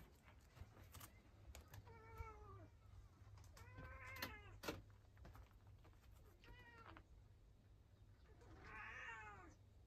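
Calico cat meowing four times while exploring, short calls that rise and fall in pitch, the last one, near the end, the loudest.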